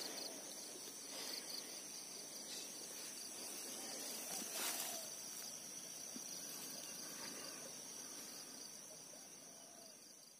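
Faint outdoor ambience with the steady high chirring of insects such as crickets. There is a brief soft noise about halfway through, and the sound fades out at the end.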